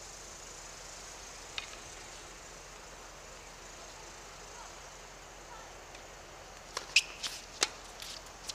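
Steady outdoor hiss with a single sharp click early on, then near the end a quick run of sharp clicks and knocks, the loudest with a brief squeak about seven seconds in: the sounds of play on an outdoor hard tennis court.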